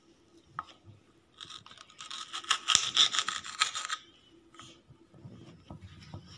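Rapid rasping, rubbing strokes on a textured cutting board as cut green capsicum rings are handled, lasting about two and a half seconds from a second and a half in, with a few light clicks around them.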